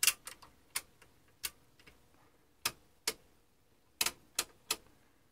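Detented rotary selector switches on a Tektronix 465 oscilloscope's front panel clicking as the knob is turned step by step: a series of sharp clicks at uneven intervals, with four in quick succession about four seconds in.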